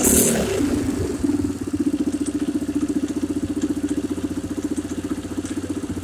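Polaris Sportsman ATV engine, just started after a valve adjustment, coming down from a rev to a steady, fast-pulsing idle about a second in. Some banging is in it that the owner can't place.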